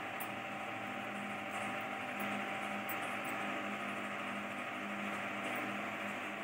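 Steady hum from a running motor or appliance over an even hiss, unchanging throughout, with a few faint light clicks on top.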